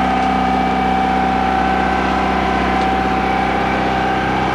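A small sailboat's auxiliary engine running steadily while the boat motors along: a constant hum with several unchanging pitched tones.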